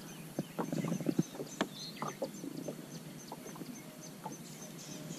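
A few light knocks and clicks, mostly in the first half, over a faint high chirp that repeats evenly about three to four times a second.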